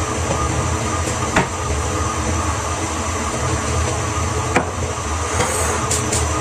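A steady mechanical hum and rumble, with two sharp knocks: about a second and a half in, and again a little past the middle, as things are handled at a kitchen counter.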